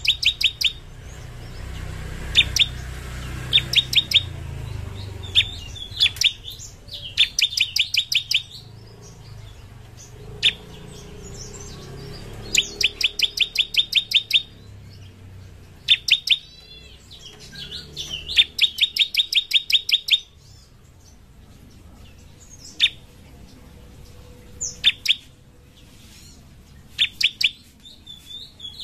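Bar-winged prinia (ciblek) singing its rapid-fire 'ngebren' song: bursts of fast, sharp, high chip notes, about six a second for a second or two at a time, broken by pauses and single sharp calls.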